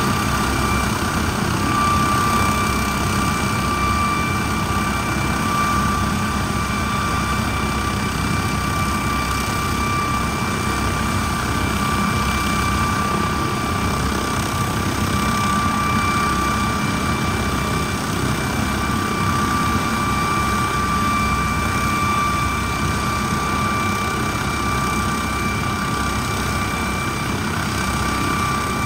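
MD900 Explorer helicopter's twin turboshaft engines and rotor running steadily, a constant turbine whine over a broad rushing noise.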